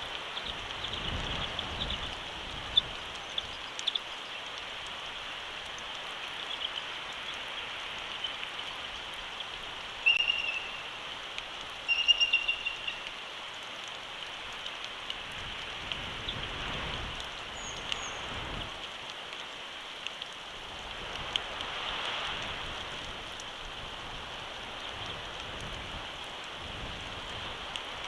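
Steady rain pattering on the nest camera's microphone, with gusts of wind swelling now and then and single drops ticking sharply. Two short chirping bird calls come about ten and twelve seconds in.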